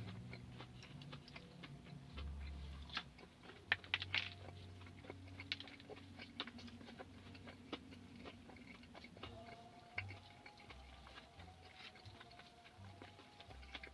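Chewing and biting of fried chicken and sweet potato fries, with scattered small clicks and crackles.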